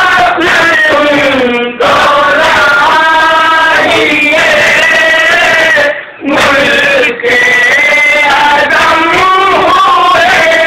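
Men's voices chanting a nauha, a Shia mourning lament, loud, with short breaks between lines about two and six seconds in.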